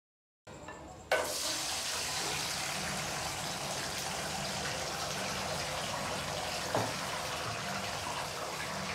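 Boiled mutton pieces going into hot oil in a karahi. A steady, dense sizzle starts suddenly about a second in and keeps going.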